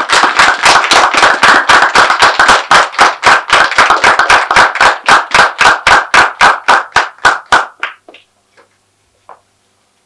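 Applause, with one pair of hands clapping close by at about four or five claps a second over the wider clapping of the audience; it stops abruptly about eight seconds in.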